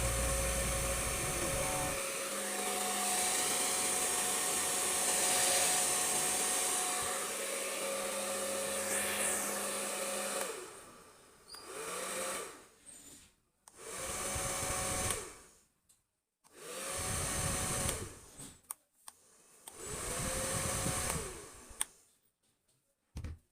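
Repaired hair dryer running with its fan motor spinning again, a steady blowing hiss with a whine. After about ten seconds it cuts off, then it is switched on four more times in short runs, the motor whine rising as it spins up and falling as it stops.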